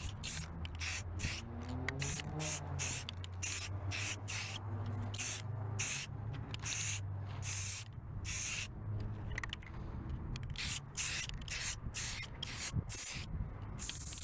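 Aerosol spray can sprayed in many short bursts of hiss. The tip is blowing mostly air and not enough paint, which the sprayer blames on a cheap tip or a bad can, and which is leaving orange peel on the coat.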